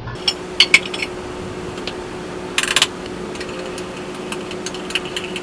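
A metal spoon stirring cocoa powder into hot coffee in a glass measuring cup, clinking and scraping against the glass in irregular ticks, with a quick rattle of clinks about halfway through. A faint steady hum runs underneath.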